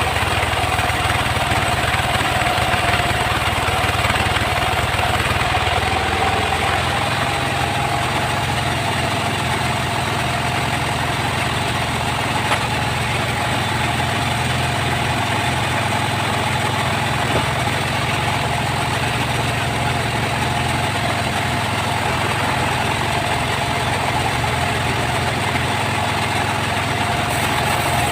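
An engine-driven sawmill saw running steadily, with a constant engine drone under a held whine from the spinning saw.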